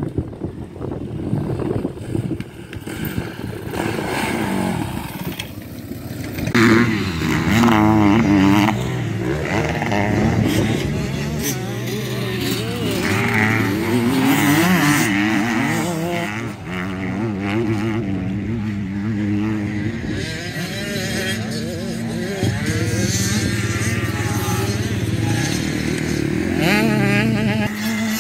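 Motocross dirt bike engines revving hard, the pitch rising and falling again and again with throttle and gear changes, louder from about six seconds in.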